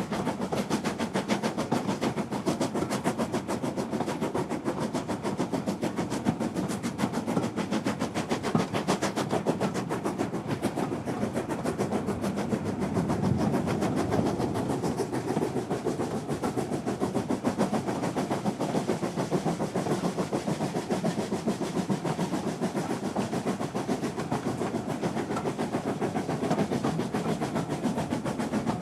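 Train running at a steady speed, a fast, even clicking rhythm over a constant rumble.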